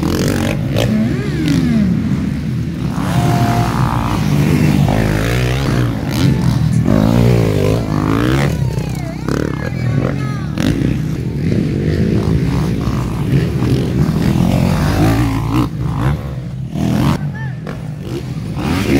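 Motocross dirt bike engines revving and accelerating, their pitch rising and falling over and over with gear changes and throttle.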